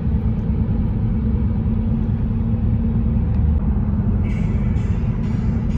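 Steady low road and engine rumble heard inside the cabin of a moving car. About four seconds in, a higher sound with short breaks joins in.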